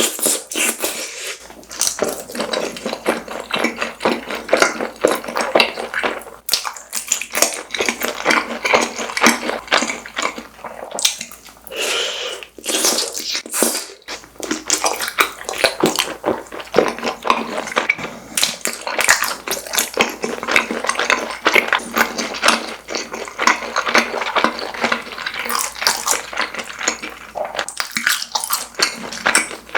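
Close-miked chewing of fried snack food: a continuous run of wet smacking and crackling mouth sounds, pausing briefly a few times.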